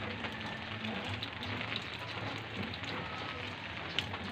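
Steady rain falling on garden plants and the ground, with scattered drops ticking and one sharper tick about four seconds in.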